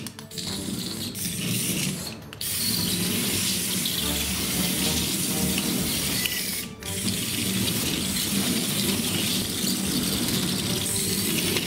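Steady mechanical rattling whir of a small gear mechanism, breaking off briefly about two seconds in and again just before the middle.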